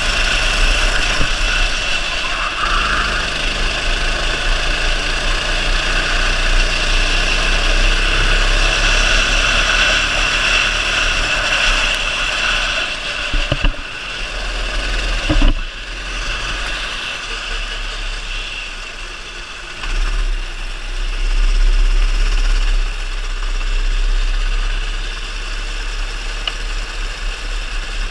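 270 cc kart engine running hard through a lap, heard onboard with wind noise on the microphone. The engine note eases off and picks up again through the corners, with a couple of sharp knocks about halfway through.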